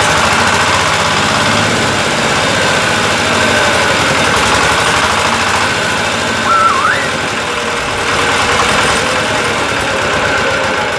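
Single-cylinder diesel engine of a two-wheel walking tractor idling with a steady, even chugging.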